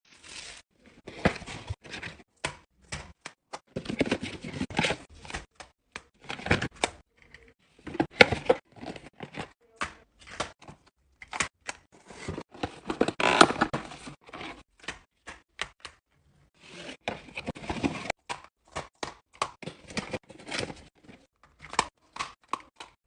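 Handling noise of coffee-pod restocking: irregular clicks, taps and rustles as Dolce Gusto plastic capsules and their cardboard boxes are handled and the pods are slotted into a wire capsule tower.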